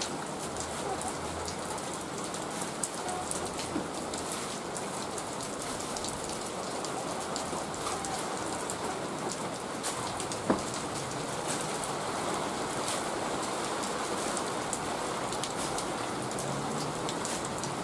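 Steady rain falling on the ground and on tarpaulins, with scattered short clicks and one sharp knock about ten and a half seconds in.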